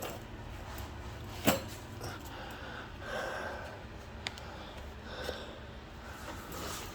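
A person breathing hard and shuffling while getting up from under a car, with one sharp knock about a second and a half in and a fainter click a few seconds later.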